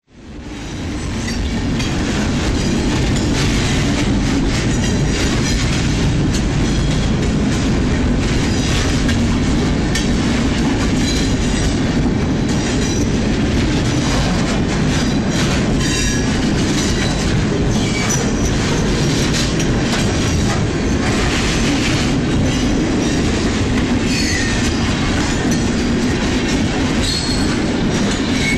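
Train rolling along the rails: a steady low rumble with rail clatter and brief high wheel squeals now and then, fading in over the first second.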